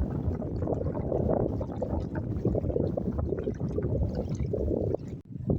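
Strong tidal current gurgling and rushing past a moored sailing boat's hull, a steady rough wash that drops away briefly about five seconds in.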